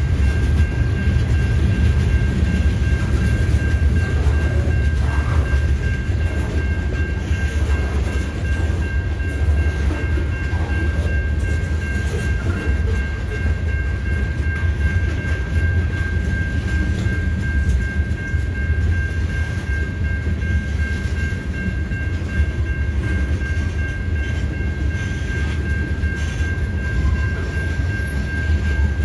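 Covered hopper cars of a freight train rolling slowly past: a steady low rumble of wheels on rail, with a thin steady high-pitched tone over it.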